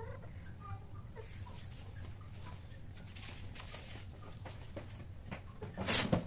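Mating cats giving a few short, faint chirping mews in the first second or so, over a low steady hum. Near the end comes a single sharp knock, the loudest sound.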